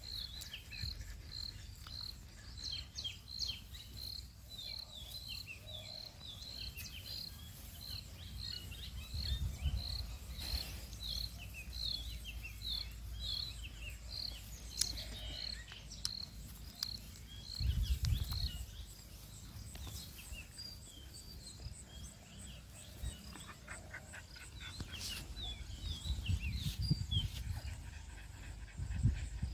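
Outdoor ambience with short high chirps repeating about two a second, growing more irregular later, and a few low rumbles on the microphone.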